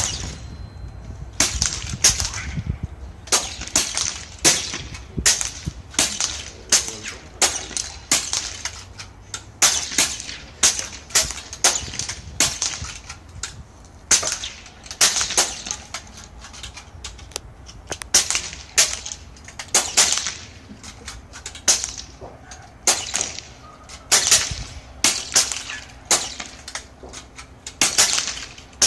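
Airgun Technology Vulcan PCP air rifle fired in rapid succession: sharp, short shot reports about one to two a second, irregularly spaced.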